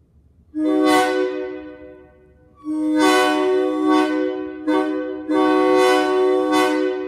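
A locomotive air horn sounding a chord of several tones at once. The first blast starts about half a second in and fades away, then longer blasts follow with brief breaks.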